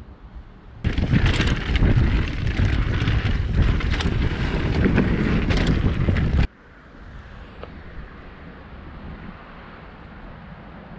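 Wind buffeting the microphone of a camera on a mountain bike riding a downhill trail. The loud rush starts suddenly about a second in and cuts off abruptly after about six seconds, leaving a quieter steady hiss.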